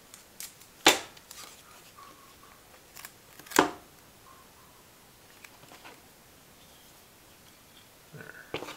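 Painter's tape ripped off the roll twice in short, sharp tears, about a second in and again at about three and a half seconds, with small clicks and quiet handling noise in between.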